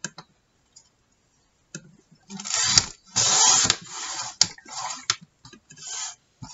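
Sliding paper trimmer cutting a strip off a thick manila file folder: the cutting head scrapes along its rail in several short strokes from about two seconds in, with sharp clicks between them. A few light clicks come first as the folder is positioned.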